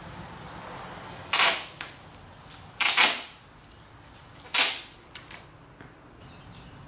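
Duct tape ripped off the roll in three short, loud strips about a second and a half apart, with a few faint crackles after the last.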